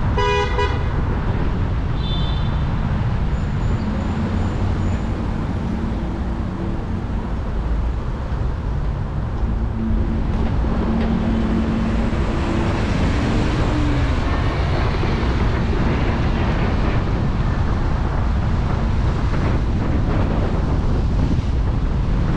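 Steady city traffic and road noise heard from a moving car, with a heavy low rumble of wind on the microphone. A car horn toots briefly at the very start.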